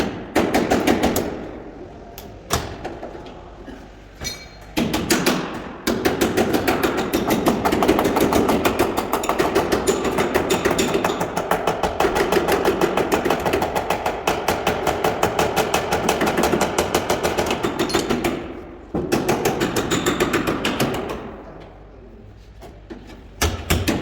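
Hammer beating out a dent in a car's sheet-metal body: rapid, even strikes several a second, in long runs broken by short pauses.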